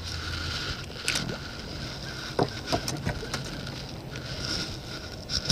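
Clicks and knocks from a spinning rod and reel being handled in a boat, over a steady hiss. The sharpest knocks come about halfway through and again near the end.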